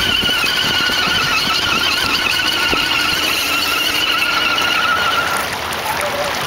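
Electric motor and gears of a scale RC crawler whining high and slightly wavering as it pushes through water, over the splashing and rushing of the stream; the whine stops about five seconds in.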